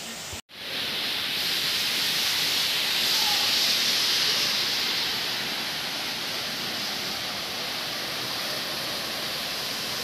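Tuisoi waterfall's falling water, a steady rushing hiss. It cuts out for a split second about half a second in, then returns and swells a little around three to four seconds in.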